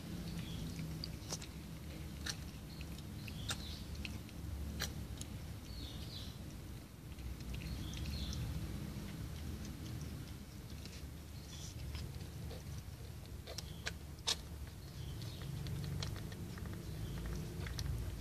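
Faint high squeaks from newborn kittens every few seconds, mixed with scattered small wet clicks from the mother cat and her kittens moving and licking in the box, over a low rumble.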